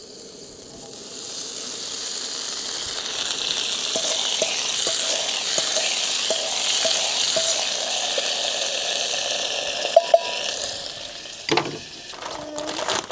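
Korean barbecue beef skewers sizzling on a hot skottle griddle. The sizzle builds about a second in, holds steady with small pops, and dies down near the end.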